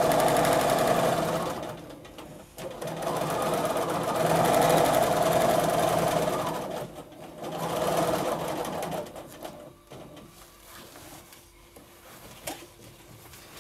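Bernina domestic sewing machine free-motion quilting with its stitch regulator, the needle running fast in three runs of a few seconds each with short stops between. It then falls quiet for the last few seconds, with only a few light clicks.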